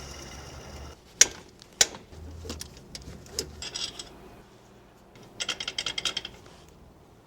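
Mechanical clicking from hand tools. Two sharp metallic clacks come about half a second apart, then some lighter knocks, then a quick run of ratcheting clicks, about eight a second, lasting just over a second.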